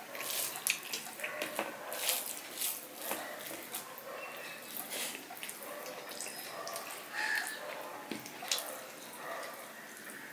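Fingers squishing and kneading rice with mashed greens on a stainless steel plate, mixed with wet chewing and lip-smacking, heard as a steady run of sharp wet clicks and squelches.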